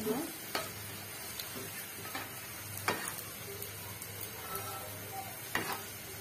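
Mughlai paratha shallow-frying in hot oil in a black frying pan, sizzling steadily as it browns, with three sharp taps of a metal spatula pressing and moving it in the pan.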